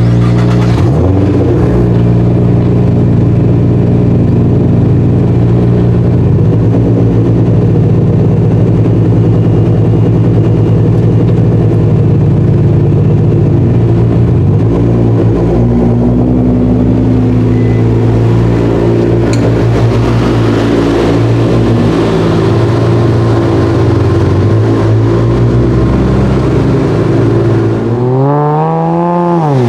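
Nissan GT-R R35's twin-turbo V6 idling steadily through its exhaust, a deep even drone with only slight changes in pitch. Near the end, another GT-R accelerates hard, its engine note climbing quickly.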